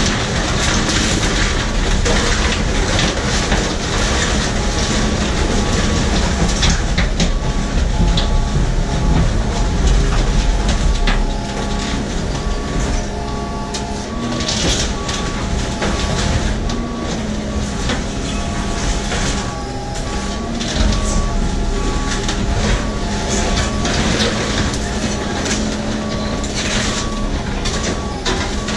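A truck-mounted hydraulic crusher arm compacting a full dumpster of cardboard and trash. The truck's engine and hydraulic system run steadily underneath, with repeated cracks and crunches as the load is crushed. The sound eases slightly about eleven seconds in.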